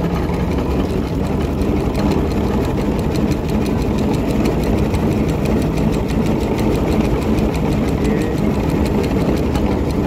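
Steam tractor working as a cable ploughing engine, running steadily as it winds in the wire rope that hauls the plough across the field: a loud, even mechanical rumble with a fast regular clatter.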